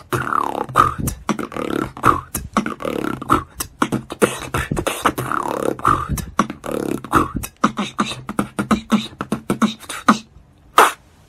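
Solo human beatbox: a fast, dense run of mouth-made drum hits and clicks mixed with gliding pitched vocal sounds. It stops about ten seconds in, leaving one last hit and a short pause.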